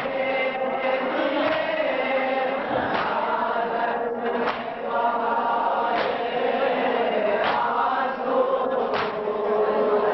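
A group of male mourners chanting a nauha in unison. A sharp beat lands about every second and a half, in time with the chant, as in matam (rhythmic chest-beating) by an Azadari anjuman.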